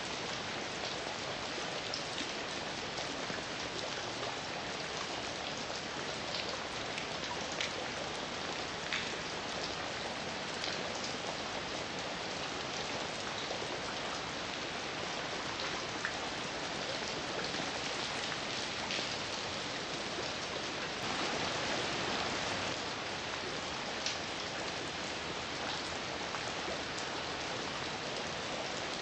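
Heavy rain falling steadily, a dense even hiss with individual drops ticking on a surface here and there; it swells slightly for a couple of seconds about three-quarters of the way through.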